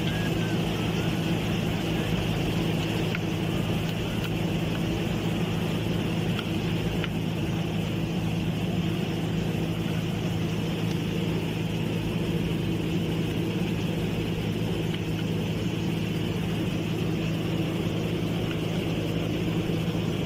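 Steady hum of machinery running at a constant speed, with a few faint metal clicks.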